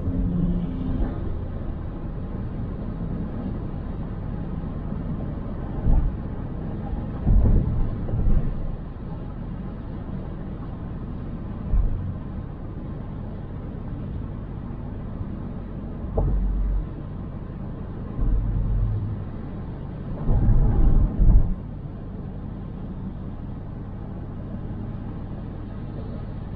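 Car driving on city streets: a steady low road rumble, with several brief low thumps as it rolls over bumps.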